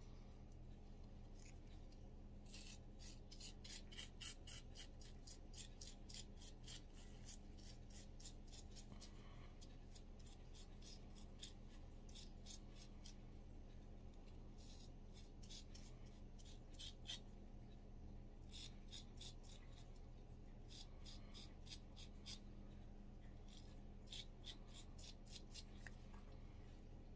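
A small bristle cleaning brush scrubbing a small pistol part: runs of quick scratchy strokes, several a second, broken by short pauses, as carbon buildup is scrubbed off.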